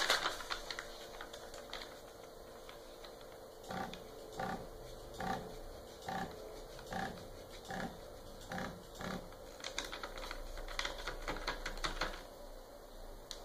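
Z-axis stepper motor of a homemade CNC router jogging the spindle down in short repeated steps, a brief buzz about every 0.8 s, as the bit is lowered onto a sheet of paper to set the Z zero. Quicker, faint clicks and rustling follow near the end.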